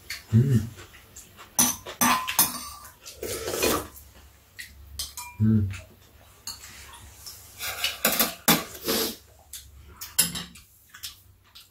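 Metal spoons and chopsticks clinking and scraping against ceramic bowls during a meal, in irregular clinks, with a few short low thuds.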